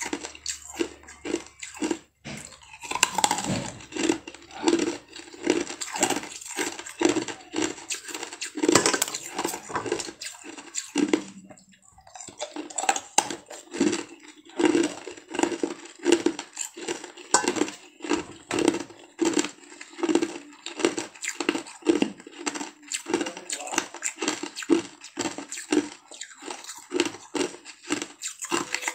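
Close-miked chewing of food, a steady rhythm of about one and a half chews a second with light crunching, with a short pause about eleven seconds in.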